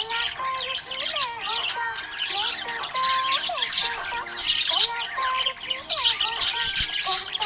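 Budgerigars chirping and squawking continuously, many quick overlapping chirps and warbles.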